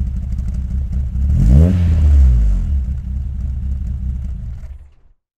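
Car engine revving: one quick rev blip that rises and falls about a second and a half in, then a low, pulsing rumble that fades out near the end.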